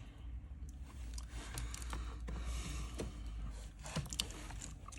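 A few faint clicks and taps of a phone and its loose screen being handled on a workbench, over a low steady hum.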